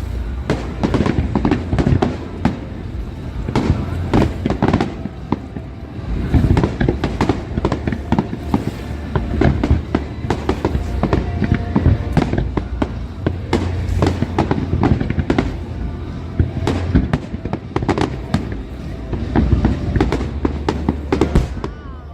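Professional aerial fireworks display: a dense, unbroken barrage of shell bursts and crackling, many sharp reports a second over deep booms throughout.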